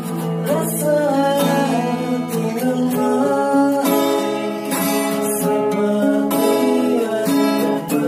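Acoustic guitars strummed while a man sings a song over them.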